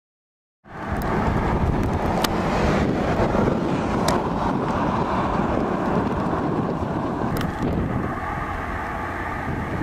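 Wind buffeting the camcorder microphone: a steady, low rumbling noise that cuts in abruptly about half a second in. A few sharp ticks sound over it.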